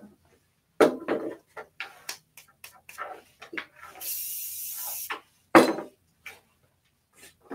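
Knocks and clatter of things being handled and set down while a grooming area is cleaned up. A steady spray hiss lasts about a second midway, and a loud knock follows just after.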